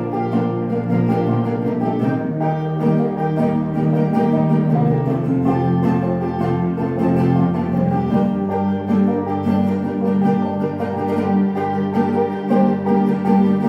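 Live acoustic string band playing an instrumental tune, a banjo picking rapid notes over a steady accompaniment.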